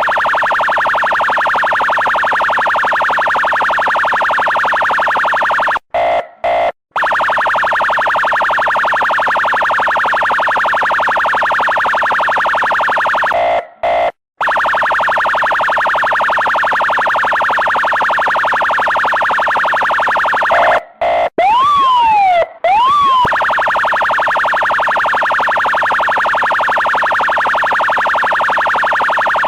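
Electronic police car siren sounding a rapid yelp in long bursts of about six seconds, separated by brief silences. About two-thirds of the way through come two short swooping whoops that fall and rise again.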